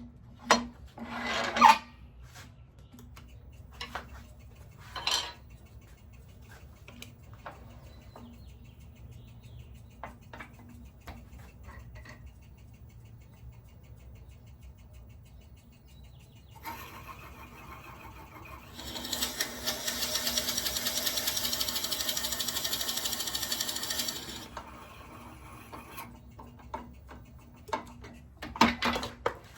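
Wood lathe running with a steady low hum, and a few sharp knocks in the first five seconds. From about 17 to 24 seconds in, a tool scrapes the spinning goncalo alves hardwood with a loud, even hiss, flattening the top of a turned shift knob.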